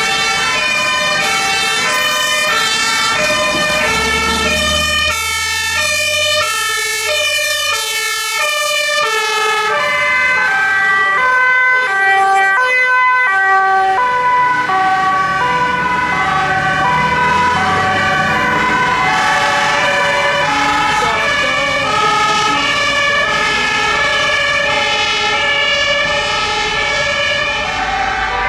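Several fire engines' two-tone sirens sounding at once, each switching back and forth between two pitches and overlapping out of step, over the low rumble of vehicle engines.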